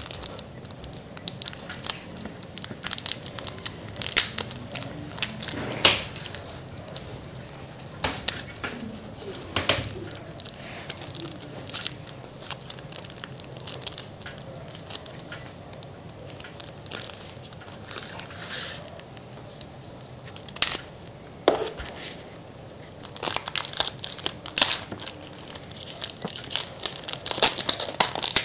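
The wrapping on a 40-card Pokémon deck being torn and crinkled open by hand: irregular crackles and rips, sparser through the middle stretch and busier again near the end.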